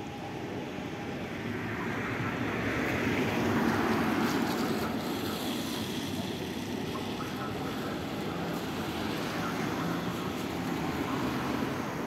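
Steady outdoor city background noise, a rushing rumble with no siren tone, swelling about three to four seconds in and then easing to a steady level.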